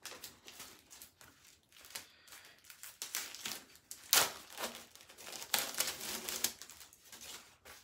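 Plastic wrapper of a Honey Pot sanitary pad crinkling and rustling as it is unwrapped by hand, in irregular crackles with the loudest about four seconds in.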